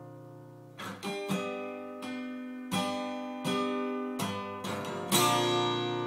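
Solo acoustic guitar: a chord dies away, then chords are struck about every half second to second, ending on the loudest chord about five seconds in, which rings out and fades.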